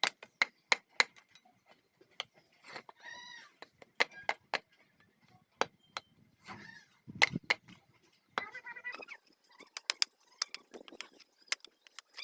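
Irregular sharp knocks and taps of work fitting a bamboo handle into a hammer head. Three short pitched calls come in between them, about 3, 6.5 and 8.5 seconds in.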